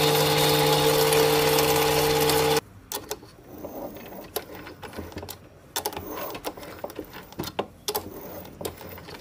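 Sieg C2 mini lathe running with a steady motor and gear whine, which cuts off abruptly about two and a half seconds in. After that come scattered light clicks and knocks as the chuck is turned by hand with a tap in the tailstock.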